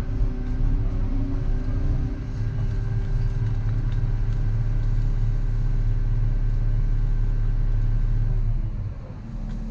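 Volvo EC140EL excavator's diesel engine running steadily under hydraulic load, its note falling and quieter about nine seconds in as the load eases.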